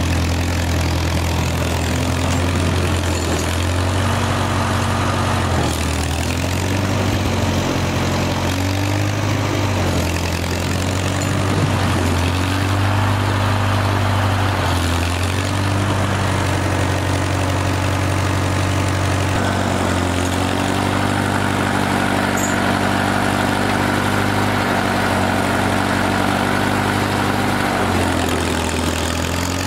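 Farmall tractor engine running under load while its front loader bucket pushes snow. The engine note dips and rises several times, then holds steadier for most of the later part.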